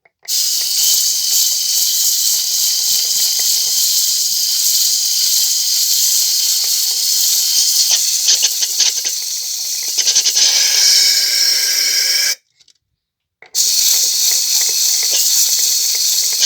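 Aerosol spray can hissing in a long burst of about twelve seconds, then a second burst after a one-second pause, as the front wheel hub of a scooter is sprayed.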